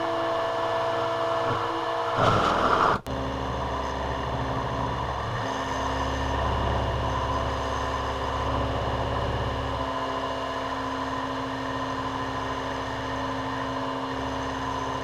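Sieg X2 mini mill running a fly-cutting pass on a thin metal workpiece: steady spindle-motor hum and whine with the cutter and feed motors. A brief louder, rougher burst about two seconds in stops abruptly, then the steady running goes on.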